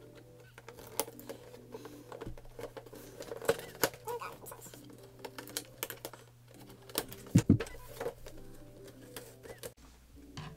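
Cardboard box and plastic packaging of a boxed anime figure being handled and opened: irregular clicks, crinkles and scrapes, with a few sharper snaps and a thump about a third and two-thirds of the way through.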